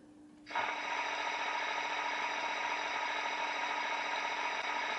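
Sound effect from the Märklin BR 216 model locomotive's sound decoder, played through its small speaker: a steady rattling hiss of compressed air starting about half a second in. It is one of the diesel locomotive's air-system sounds, which the owner takes for the compressor.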